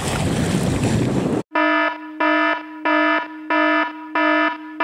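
Wind and rushing water, cut off abruptly about a second and a half in. Then an electronic alarm starts beeping, about five buzzy beeps roughly 0.7 s apart, sounding the alert for a man-overboard drill.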